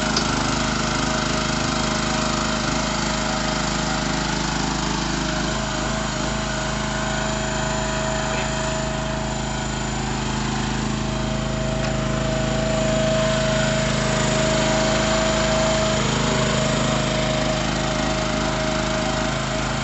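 Small engine on a portable SPT drilling rig running steadily as it powers the rig's hydraulics, with a steady whine that grows louder for a few seconds in the second half.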